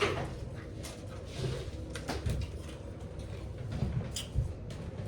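Light handling noises: scattered short clicks and knocks, with a few low thumps around four seconds in.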